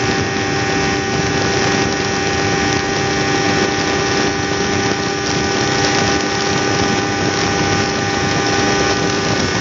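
Kawasaki ZZR250's parallel-twin engine running flat out near its 13,000 rpm top end at high road speed, a steady drone whose pitch holds level, with wind noise over it.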